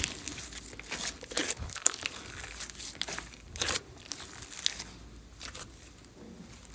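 A large lump of thick mixed slime being squeezed, folded and stretched by hand, giving irregular sticky pops and crackles as air pockets burst and the surface tears. The pops come thickest in the first four seconds and thin out toward the end.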